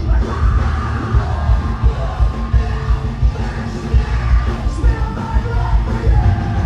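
Live heavy rock band playing loud, filmed from the audience on a phone: distorted guitars, a heavy low drum beat and vocals.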